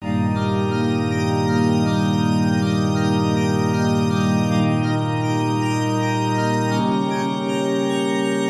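Background music: held organ-like chords, changing about halfway through and again near the end.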